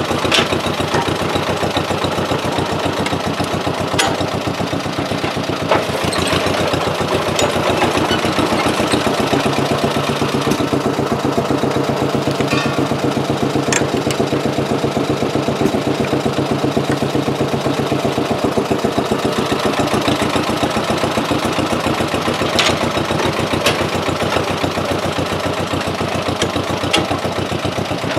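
An engine idling steadily, with a few sharp clicks now and then.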